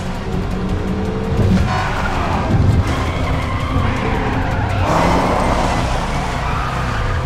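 Sports car engines revving and tyres squealing as two cars skid and drift on asphalt, with film music underneath.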